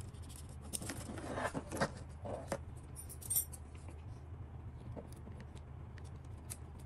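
Handling noise from a partly dismantled DJI Mini 3 Pro drone: light clicks and short scrapes of its plastic shell and small parts against gloved fingers and metal tweezers, busiest during the first few seconds.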